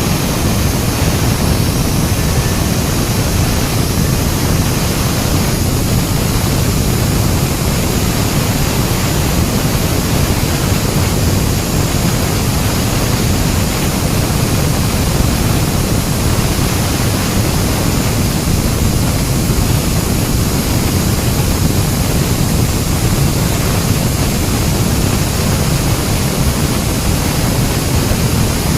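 Bohai 400 concrete ring saw running under load as it cuts deep into concrete, a loud, steady noise that does not let up.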